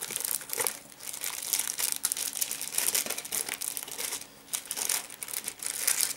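Thin plastic packaging and PVA bags crinkling and rustling as they are handled and a bag is pulled out, with dense sharp crackles and a brief lull about four seconds in.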